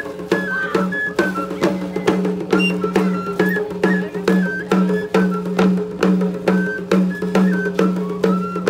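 Tlacololero dance music: a flute playing a short, repeating high melody over a quick, steady drum beat of about three strokes a second.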